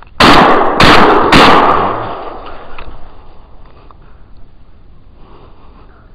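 Three loud gunshots in quick succession, about half a second apart, each echoing away over about two seconds: a hunter's shots at a deer driven by dogs.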